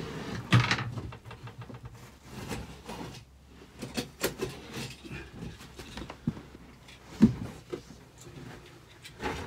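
A heavy roll of carpet being shifted and pushed across a floor: irregular thumps, knocks and rustling, with a louder thump about half a second in and another about seven seconds in.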